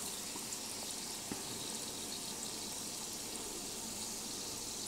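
Cornmeal-battered hot dogs (corn dogs) deep-frying in a skillet of hot oil: a steady sizzling and bubbling, with an occasional faint crackle.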